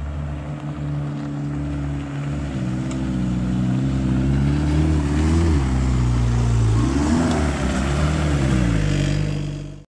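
VW Westfalia camper van's rebuilt AAZ turbo-diesel engine running as the van drives slowly past on a gravel track, its pitch rising and falling a few times. The sound cuts off suddenly near the end.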